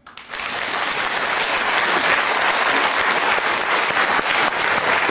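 Studio audience applauding, breaking out abruptly and then holding steady.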